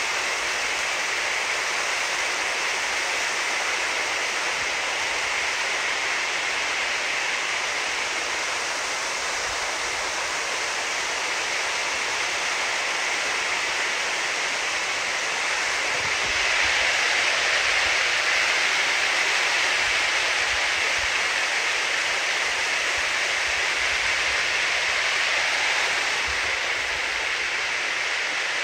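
Muddy rainwater runoff rushing down a small rocky arroyo: a steady, loud rushing of fast, churning water, a little louder from about halfway through.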